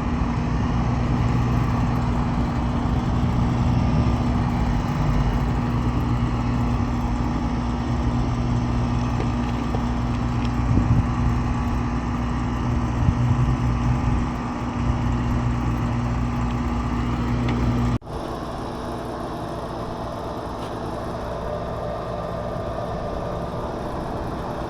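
Central air conditioner's outdoor condensing unit running: a steady hum of the compressor and condenser fan, with a low electrical drone. The system is nearly empty of refrigerant. About 18 s in the hum drops abruptly to a quieter, smoother level.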